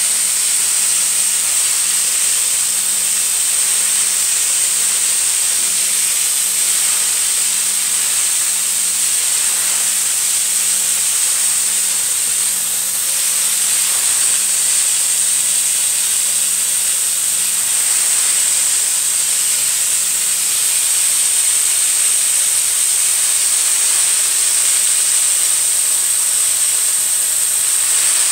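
Rotovac Bonzer carpet-extraction wand vacuuming water out of wet carpet: a steady, loud rush of suction air with a constant high whistle.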